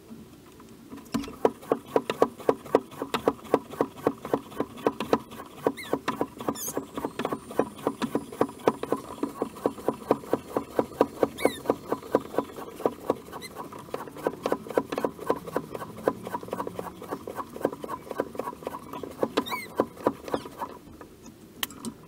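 Bicycle track pump being worked in a fast, even rhythm of strokes, inflating a tubeless mountain-bike tyre to seat its bead on the rim. The pumping stops about a second before the end.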